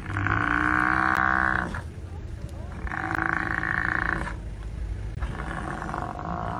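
Cape buffalo bellowing in distress while pinned down by lions: three long calls of about a second and a half each, over a steady low rumble.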